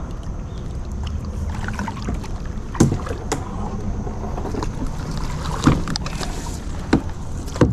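A small boat being paddled down a river: a steady low rumble of water and movement, broken by about five sharp knocks, likely the paddle striking the hull.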